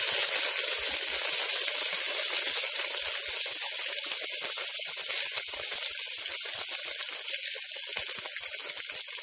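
Garlic paste frying in hot mustard oil with whole spices in a pressure cooker, stirred with a spatula: a steady sizzling hiss that eases slightly toward the end.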